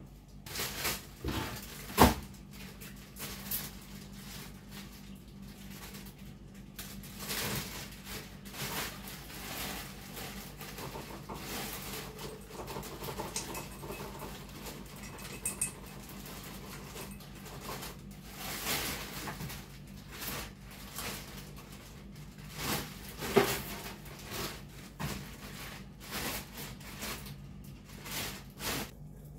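Irregular knocks, light clatter and rubbing of household items being handled and wiped during kitchen cleaning, with a sharp knock about two seconds in and another near the middle of the second half, over a steady low hum.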